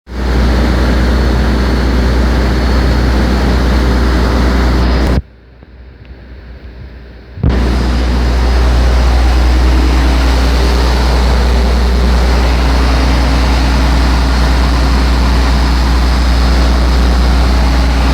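Boat engine drone: a loud, steady deep hum under a broad rushing noise, heard from aboard a vessel under way. The sound cuts out sharply about five seconds in and comes back unchanged two seconds later.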